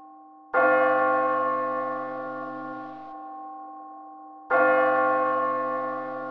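A bell struck twice, about four seconds apart; each stroke rings on with several tones and slowly fades.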